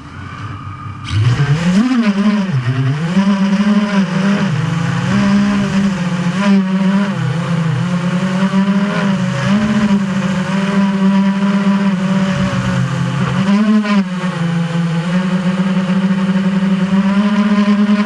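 FPV drone's electric motors and propellers whining, their pitch rising and falling with the throttle, recorded by a camera mounted on the drone itself. It starts faint and comes up loud about a second in.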